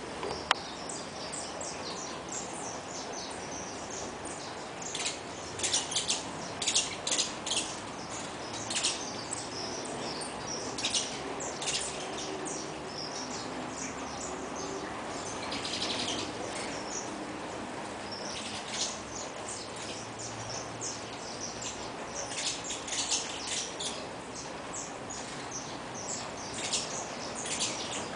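Saffron finches (canário-da-terra) chirping: repeated clusters of short, high calls coming and going over steady background noise.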